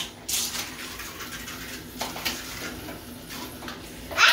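Water splashing in a bathtub in short bursts, about half a second in and again about two seconds in, over a steady low hum. A child's voice starts right at the end.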